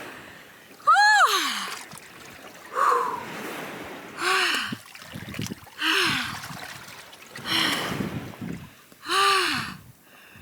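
A woman gasping and letting out short, breathy 'ooh' cries with a rising-then-falling pitch, six times at roughly one-and-a-half-second intervals, as she stands in freezing sea water: the cold-shock breathing of a cold-water dip.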